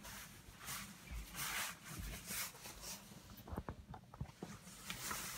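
Soft rustling and light steps of someone moving across a small room, then a quick cluster of small clicks and knocks from handling the camera close up, a little after three seconds in.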